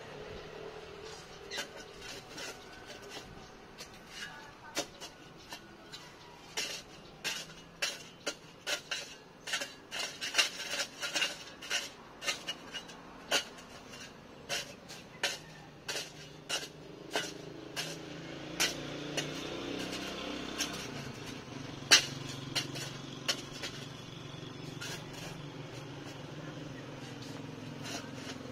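Shovel striking and scraping hard, stony dry soil while digging a foundation trench: a string of irregular metallic clinks, quickest in the middle, then sparser, with one sharp loud strike near the end. A low steady engine hum rises in the background over the last third.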